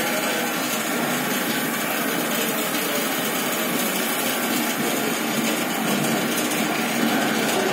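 Coffee roaster's cooling tray running, its rotating stirring arms sweeping through freshly roasted coffee beans: a steady, even rush of moving beans and machine noise.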